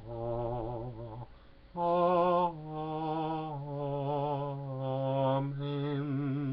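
A man singing solo and unaccompanied in slow, long-held notes with a wide vibrato. After a short pause about a second in, he sings a run of held notes that step slowly downward.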